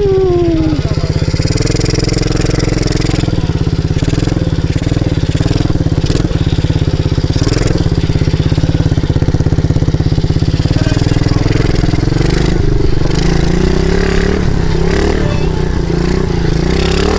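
Dirt bike engine running steadily at low revs close to the rider's helmet camera while riding slowly over sand, the revs lifting slightly for a few seconds near the end.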